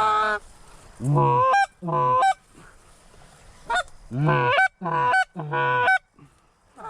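Canada goose honks: about seven loud honks in quick runs, each sliding from a low note and breaking up to a higher one, typical of calling geese in to decoys.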